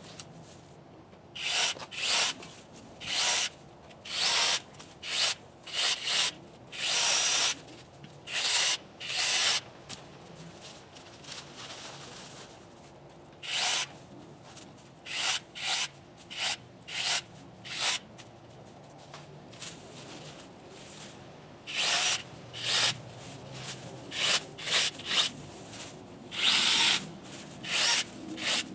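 Cordless electric mini chainsaw cutting through small branches in many short bursts, each under a second, with brief pauses between cuts and a couple of longer lulls.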